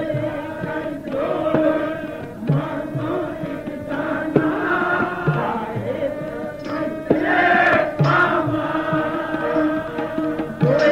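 Sikh kirtan: a male voice singing a Gurbani shabad over a steady harmonium, with tabla strokes keeping the rhythm.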